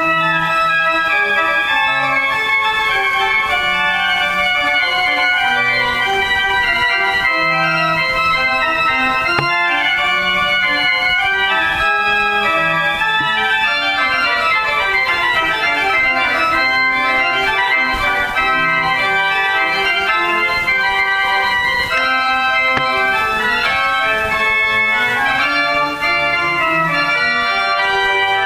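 Organ music: sustained chords with notes changing in steps and a line moving down through the lower register partway through.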